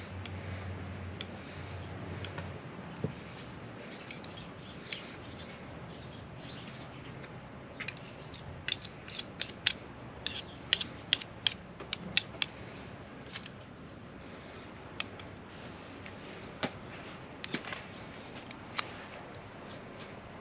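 Sharp metallic clicks and taps of a knife against a stainless steel mixing bowl as garlic is mashed into a paste. The clicks come singly at first, then in a quick run around the middle.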